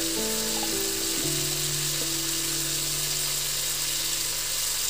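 Mutton and potato pieces sizzling in oil in a kadai, a steady hiss under background music of long held notes.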